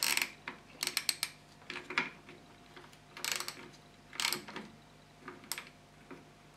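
Hand socket ratchet clicking in short runs as it tightens a motorcycle battery's terminal bolt, along with a few scattered clicks and knocks from handling the terminal.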